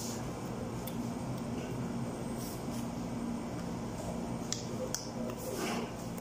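Someone eating: chewing and mouth sounds with a few short, sharp clicks, over a steady low hum.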